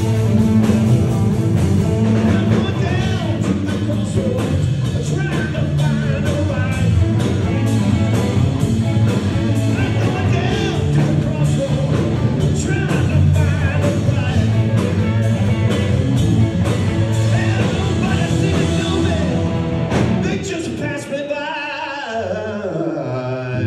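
Live rock band playing loud: electric guitars, bass guitar and drums, with a voice singing over them. Near the end the full band drops back and a guitar plays several notes sliding down in pitch.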